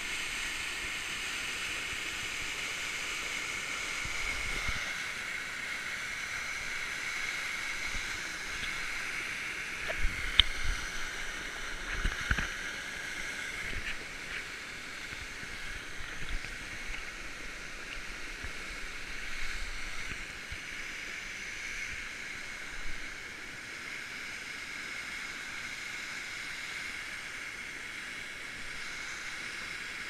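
Steady rush of a small waterfall and creek, a continuous hiss that eases a little about halfway through. A few sharp knocks sound about ten to thirteen seconds in.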